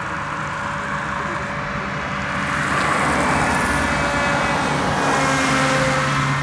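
VEGA FPV flying-wing drone's propeller whining as the plane flies low past. It grows louder about halfway through, with several pitches held together, and drops slightly in pitch near the end as it goes by.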